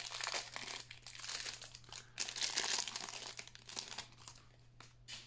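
Foil wrapper of a Panini Prizm trading-card pack crinkling as it is torn open by hand. The crackling is strongest about halfway through and dies down near the end.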